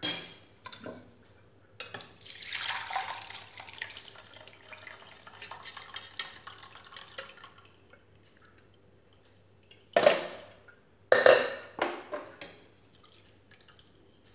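Boiled chicken soup being poured from an aluminium pressure-cooker pot through a wire strainer into a bowl: a splashing pour of broth and shredded chicken for several seconds. Near the end come a few sharp metal knocks and scrapes of the pot and a steel spoon against the strainer.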